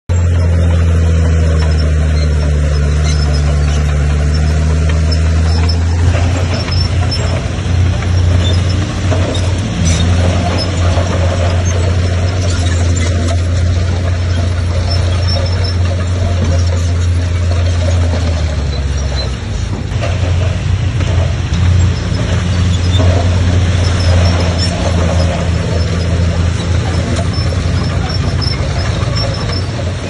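Heavy diesel earthmoving machinery running with a steady low engine note. About six seconds in the sound turns rougher, as under load, with a brief dip about two-thirds of the way through.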